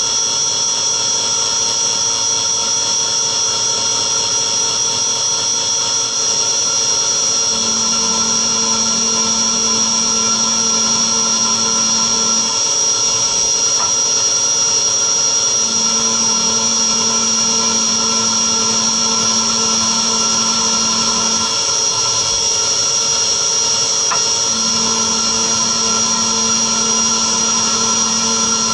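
Mini vertical machining centre milling 6061 aluminium under coolant spray: a steady high-pitched spindle whine with cutting noise. A lower hum comes in three long stretches, starting about a third of the way in.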